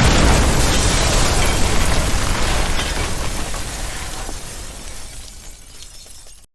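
Explosion sound effect: a blast that opens at full loudness and slowly dies away over about six seconds, then cuts off.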